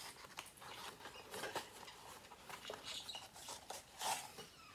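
A packet of embroidery floss being handled and opened, its packaging crinkling and rustling in small irregular crackles, a little louder about four seconds in.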